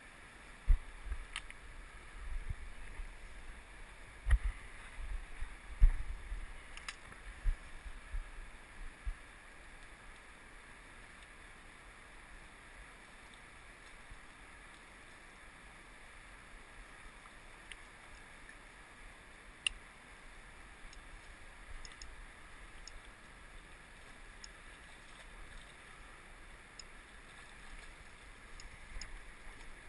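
Steady rush of a fast river. Low thumps and buffeting on the microphone during the first nine seconds, and a few faint clicks later on.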